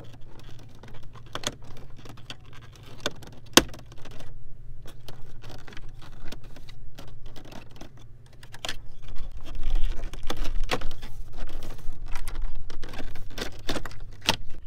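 Plastic dashboard trim of a 1992–95 Honda Civic clicking and creaking as the upper dash panel around the gauge cluster is pried loose from its clips, with a sharper click about three and a half seconds in.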